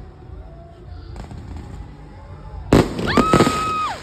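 Fireworks: a sharp bang about three-quarters of the way in, then a high, steady whistling tone that cuts off just before the end.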